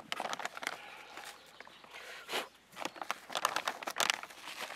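Clear plastic zip-lock bag crinkling and rustling in the hands, in a string of short, irregular rustles.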